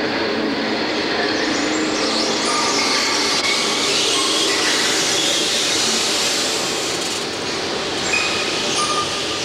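Steady, loud rushing din of an aquarium's underwater viewing tunnel, with faint distant voices scattered through it.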